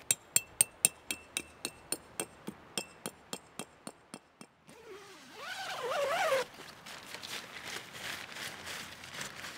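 Tent peg being hammered into hard, dry ground: a quick run of sharp metallic strikes, about four a second, growing fainter over about four seconds. About five seconds in comes a brief louder sound of wavering pitch, followed by the crinkly rustle of tent fabric being handled.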